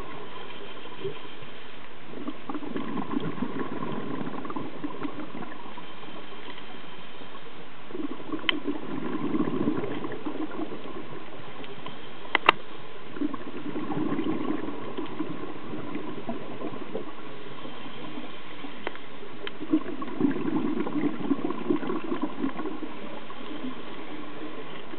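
Scuba diver's regulator breathing underwater: four long gurgling rushes of exhaled bubbles about five to six seconds apart, with lighter hissing between them. There are two sharp clicks in the middle.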